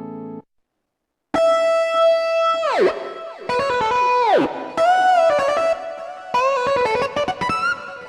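Roland JD-990 digital synthesizer demonstrating patches. A held chord cuts off about half a second in. After a short gap a new lead patch plays single notes with two deep pitch-bend dives and smaller bends up into later notes.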